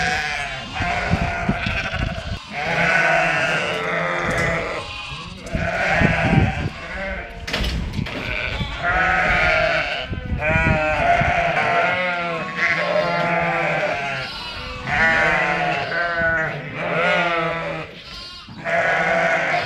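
A flock of sheep bleating without a break, many calls overlapping and wavering in pitch, with a few short knocks among them.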